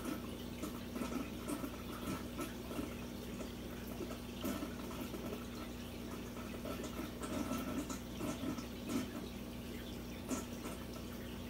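Aquarium water trickling and dripping, with small drips and a steady low hum underneath.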